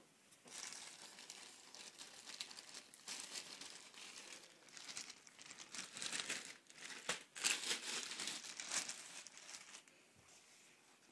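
Plastic shopping bag crinkling and rustling in irregular bursts as hands dig into it and pull out the packaged shinpads. It is loudest around seven to nine seconds in and dies away near the end.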